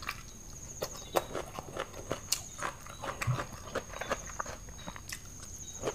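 Close-miked eating sounds: irregular wet chewing, lip smacks and mouth clicks as someone chews a mouthful of spicy papaya salad with squid.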